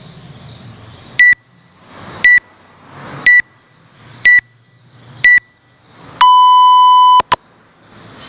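Workout timer beeping a start countdown: five short high beeps about a second apart, then one long lower beep lasting about a second that signals the start of the workout.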